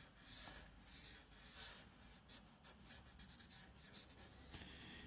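Felt-tipped whiteboard marker rubbing over paper in repeated faint back-and-forth strokes while colouring in an area. The strokes come slower at first, then quicker and shorter.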